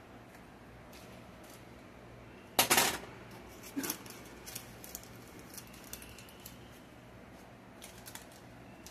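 A short clatter of kitchenware about two and a half seconds in, a smaller knock a second later, then light scattered clicks and scrapes of a utensil working batter in a parchment-lined metal baking pan.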